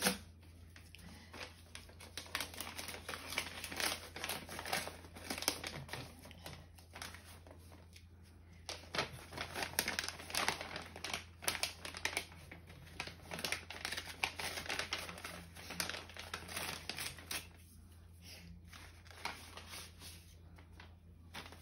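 Paper rustling and crinkling as a greeting-card envelope is handled and opened and the card drawn out: a run of quick, irregular crackles that thins out over the last few seconds.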